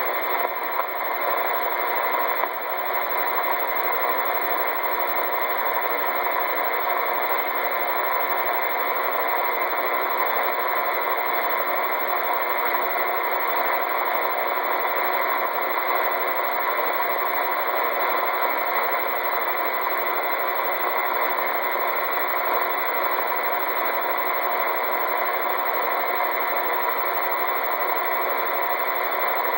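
Steady radio static: an open receiver's hiss, cut off below and above as through a radio's audio, running unchanged with no voice on the channel.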